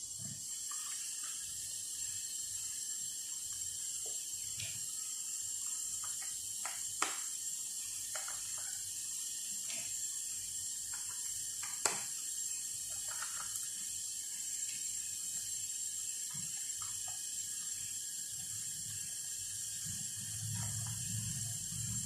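Small screwdriver ticking and clicking as it turns the tiny bottom-case screws of a MacBook Pro A1708 loose, with two sharper clicks, about 7 and 12 seconds in, over a steady high hiss.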